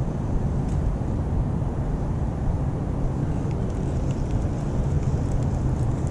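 Wind rumbling steadily on the camera's microphone, with a few faint light ticks about halfway through.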